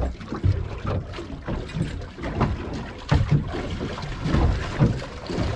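Wind buffeting the microphone and water slapping against the hull of a small boat drifting at sea, with irregular low thumps and knocks.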